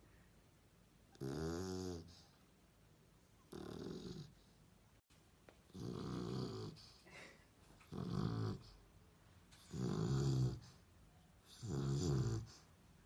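A sleeping dog snoring: six snores, about one every two seconds, each a short pitched rattle with quiet breathing in between.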